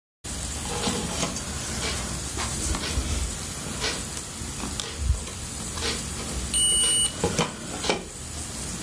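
Digital multimeter's continuity beeper sounding once, a single high tone lasting about half a second, as the probes find a connected circuit. Around it, a steady hiss with faint clicks of the probe tips moving.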